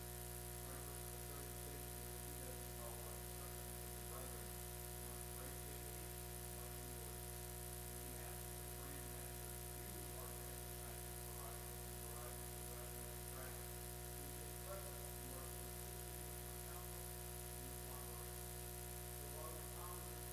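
Steady electrical hum and buzz, with faint music of scattered short notes underneath.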